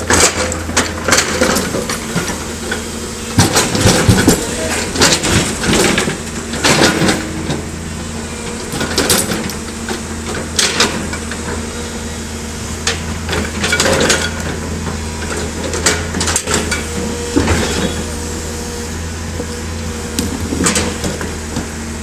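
L&T PC200 hydraulic excavator's diesel engine running steadily under load, with irregular metallic clanks and knocks of the bucket striking and scraping rock.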